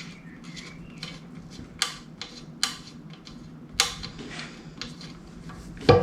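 Light clicks and clinks of metal bike parts and tools being handled, with three sharper clicks in the middle and a louder knock just before the end.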